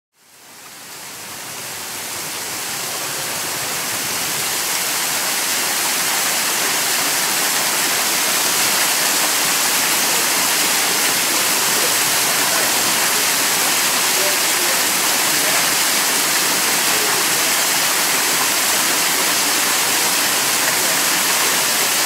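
Small waterfall splashing down onto rock and into a shallow pool: a steady rush of falling water that fades in from silence over the first few seconds and then holds level.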